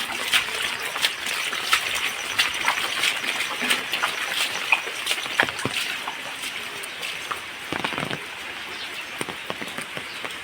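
Rain falling steadily, with many small sharp drop hits on the surfaces around.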